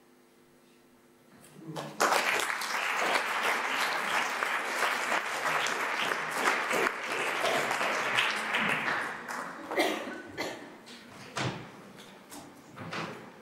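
Audience applause breaking out about two seconds in, after the last held note of a song fades away; it stays strong for several seconds, then thins to scattered claps near the end.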